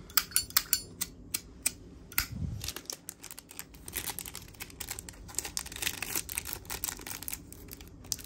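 Metal clicks and rattles of a Zippo lighter being handled: a few sharp clicks in the first two seconds, then a run of quicker, lighter clicking.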